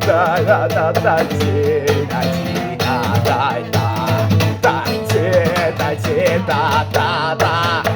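Rock band music with guitar and drum kit, carrying a wavering lead melody line and no sung words.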